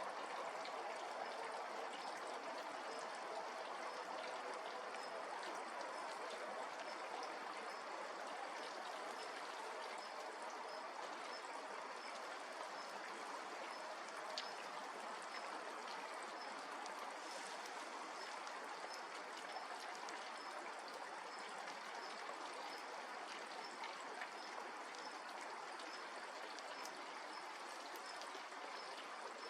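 Steady rushing of running water, like a stream, with faint, evenly repeated high ticks or chirps over it, about one to two a second.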